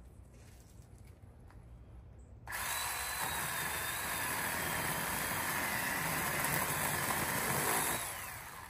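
Electric pole cutting tool switched on about two and a half seconds in, its motor running at a steady high whine while cutting into brush, then shut off and winding down near the end.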